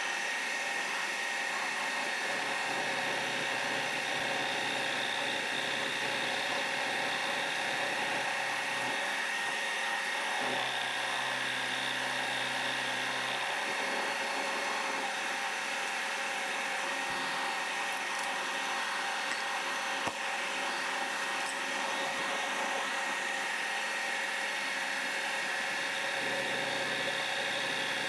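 Vertical milling machine running steadily, an end mill under flood coolant cutting a hex flat on a bolt head held in a collet block: a steady whine with cutting noise.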